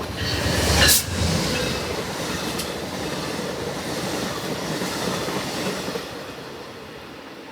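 Amtrak passenger train passing at speed, its wheels and cars making a steady rushing noise on the rails. The noise is loudest about a second in and eases off after about six seconds as the train goes by.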